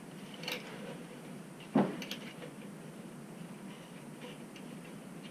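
Clicks and knocks of tools and metal parts being handled during work on an air compressor's pressure switch: a small click about half a second in, then a louder dull knock just under two seconds in with a couple of light clicks after it.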